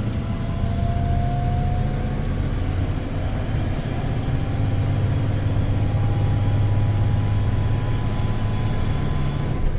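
Engine and road noise heard from inside a moving vehicle's cab: a steady low hum with a faint whine that rises slowly in pitch.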